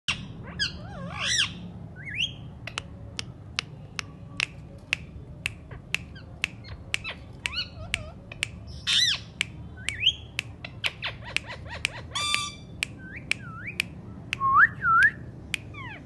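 Indian ringneck parakeets giving whistled calls that swoop up and down in pitch, with a harsh squawk about twelve seconds in, over a string of sharp clicks at about two a second.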